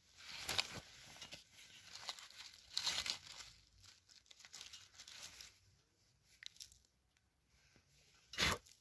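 A gloved hand rustling through grass and dry leaves while gripping and pulling a field mushroom out of hard ground. The crinkling and tearing noises are busiest in the first half and quieter after that, with one short, loud rustle near the end.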